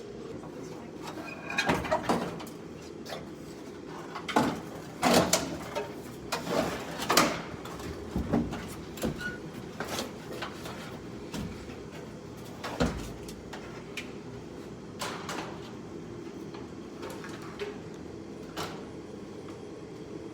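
Irregular knocks, clicks and scrapes of car dashboard parts and tools being handled during the dash's removal, over a steady low hum.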